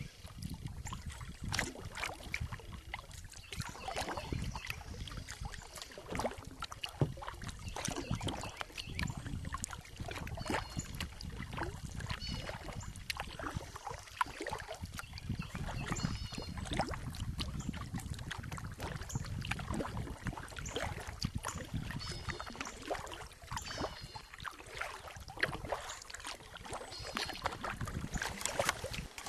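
Kayak being paddled: paddle strokes dipping and dripping in the water, with irregular knocks of the paddle against the hull. A few faint high chirps come through now and then.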